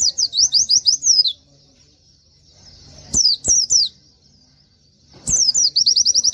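Pleci (white-eye) singing in three loud bursts of rapid, high down-slurred notes, the last a fast even trill of about ten notes a second. A sharp click comes at the start of each burst.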